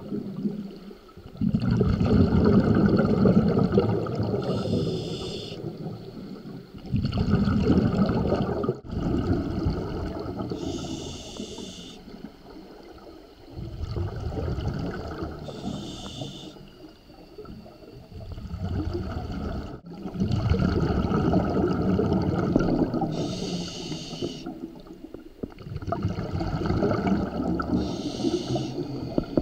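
Scuba diver breathing underwater through a regulator: a short hiss on each inhale, then a longer rumbling rush of exhaled bubbles, about five slow breaths in a steady rhythm.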